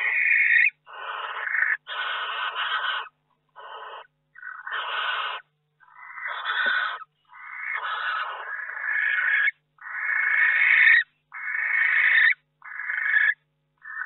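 Barn owls giving harsh, hissing screech calls, about a dozen in a row, each lasting half a second to a second with short gaps between them.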